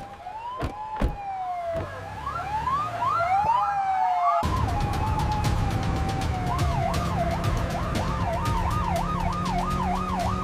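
Emergency vehicle sirens. First come a run of rising sweeps. About four seconds in, the sound cuts to a vehicle's engine rumble, and a fast yelping wail swings rapidly up and down over it.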